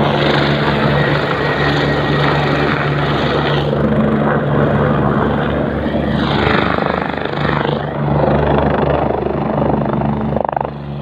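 Helicopter lifting off and climbing away: a steady drone of rotor and engine under a loud rushing noise.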